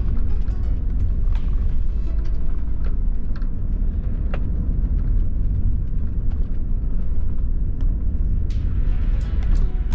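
Steady low engine and road rumble of an Ecolines double-decker coach on the move, heard from inside the cabin, with occasional sharp ticks.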